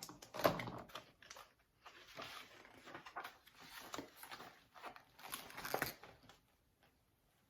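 Paper rustling and crinkling as the pages of a large picture book are handled and turned, in a string of irregular crackly bursts that die away about six seconds in.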